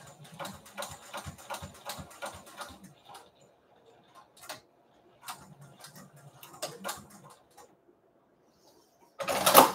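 Juki sewing machine stitching slowly in two short runs with a pause between, each needle stroke a tick at about four a second over a low motor hum. A short, louder clatter near the end.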